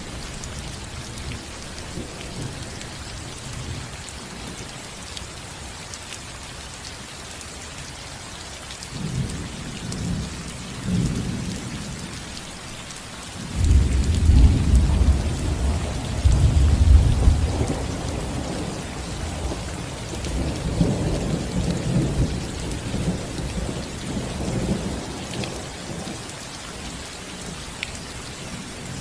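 Steady rain falling on a roof, with thunder rolling. A faint rumble comes about nine seconds in, then a loud, long rumble starts about fourteen seconds in and dies away slowly over the next ten seconds.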